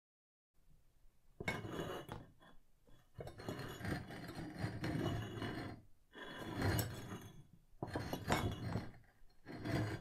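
Foley stone scraping: a block of stone ground and dragged against a hard floor in about five long, gritty strokes with small clinks, starting just over a second in. It stands in for a heavy gravestone slab being pried up and shifted.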